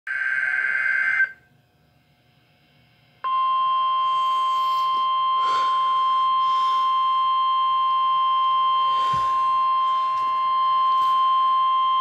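A NOAA Weather Radio emergency alert playing through a Midland weather radio's speaker. A buzzing digital header burst ends about a second in. After a two-second gap, the steady 1050 Hz warning alarm tone sounds for about nine seconds. It signals that an alert message follows.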